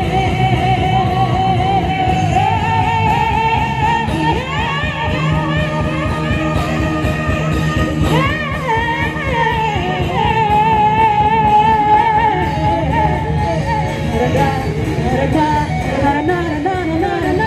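Live band music over a PA: a woman sings a melody with long held, wavering notes, backed by electric guitar and drums, heard from among the audience.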